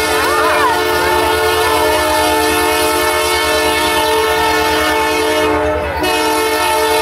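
Diesel locomotive air horn sounding a long multi-note chord, breaking off briefly near the end and starting a second blast, over the low pulsing rumble of the arriving train.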